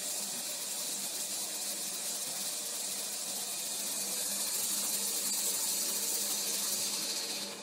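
Washing machine running: a steady hiss with a faint low hum underneath.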